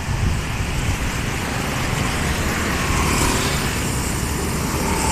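Road traffic: the engines and tyres of passing vehicles rumble steadily, with a vehicle passing close about three seconds in.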